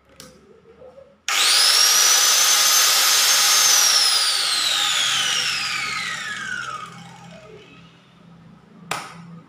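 Angle grinder run with no load: the motor starts about a second in and spins up to a high whine almost at once, runs for about two seconds, then is switched off and winds down, the pitch falling over about three seconds. A sharp click comes near the end.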